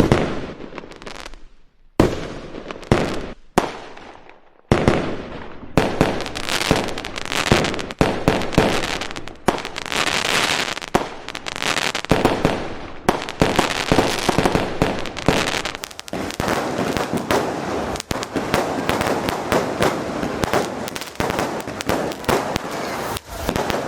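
Fireworks going off: a handful of separate sharp bangs with short gaps at first, then from about six seconds in a dense, continuous crackle of many overlapping pops and bangs.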